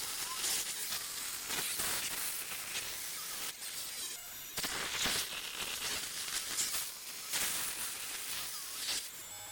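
A milling cutter cutting a shaft hole into a small part, a harsh continuous hiss broken by irregular crackling as the cutter bites.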